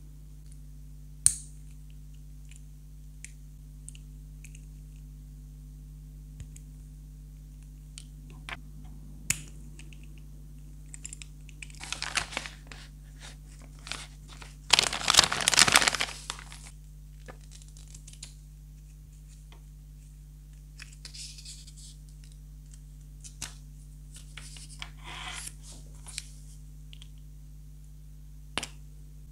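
Handling of a foil blind bag and small plastic toy figures: the foil crinkles in short spells, loudest a little after halfway, between sharp isolated clicks of hard plastic pieces and clip-on charms being set down and snapped.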